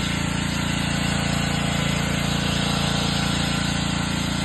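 An engine idling steadily, with an even low hum that neither revs nor changes.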